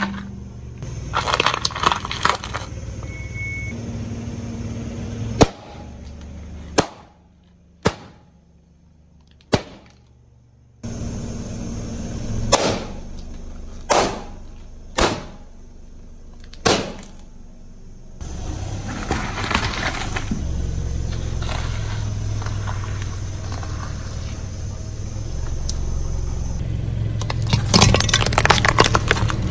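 A car tyre rolling over and crushing objects one after another, over a low rumble of the car. There is a string of single sharp pops and cracks, among them balloons bursting under the wheel. Near the end comes a dense crackling crunch as hollow plastic toys are flattened.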